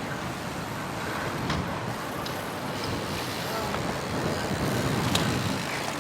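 Steady outdoor road and traffic noise, with a few faint light clicks and short squeaks.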